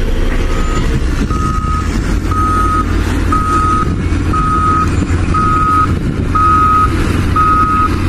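A truck's reversing alarm beeping about once a second, a single steady tone, over a steady low engine rumble.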